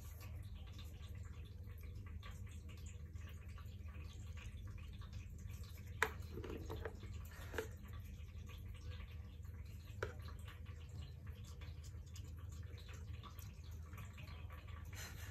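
Faint steady low hum with three light, sharp clicks about six, seven and a half, and ten seconds in, from a soldering iron and wires being handled at the BMS board of a lithium-ion battery pack.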